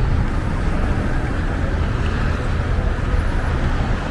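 Street ambience of road traffic: a continuous low rumble with steady noise above it, no single event standing out.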